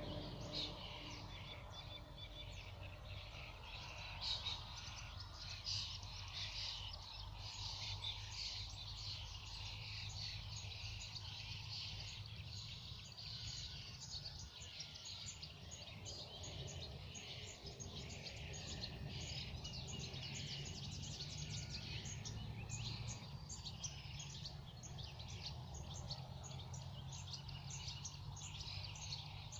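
Several small songbirds chirping and singing continuously in quick overlapping high notes, over a steady low background rumble.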